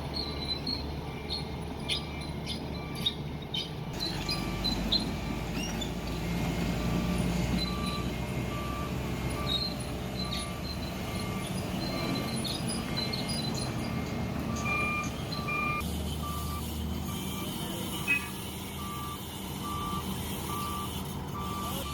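Diesel engine of a JCB 3DX backhoe loader running under work, with a reversing alarm beeping at one pitch in a steady rhythm. A few sharp knocks come in the first half.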